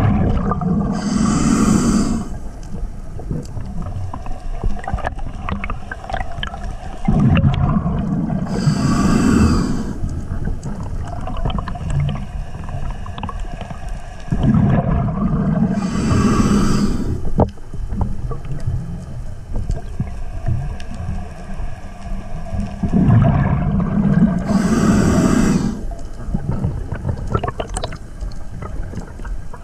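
Scuba diver breathing underwater through a regulator: four breaths about seven to eight seconds apart, each a burst of hiss and bubbling, over a steady low underwater rumble.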